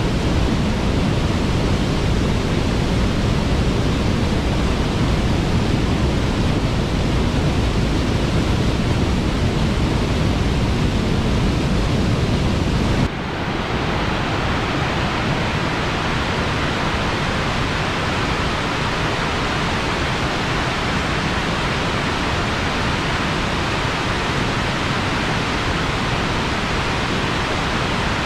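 Steady rushing of a waterfall, loud and even. About halfway through it changes abruptly from a deep rumble to a thinner, hissier rush.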